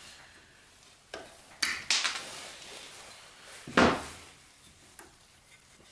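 Metallic clicks and scrapes of a tool working the spring clip off a moped drive chain's master link, with one louder clank about two-thirds of the way through.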